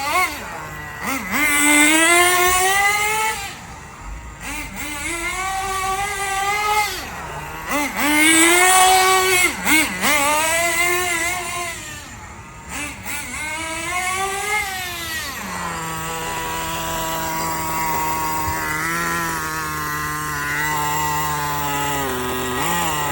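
Small nitro engine of an HPI WR8 rally RC car, its pitch rising and falling over and over as it is throttled up and back while driving. About two-thirds of the way through it drops to a steady, lower idle.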